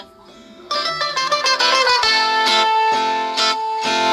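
Instrumental music led by plucked strings. It is quiet at first, comes in loud just under a second in, and a long held note sounds from about two seconds in.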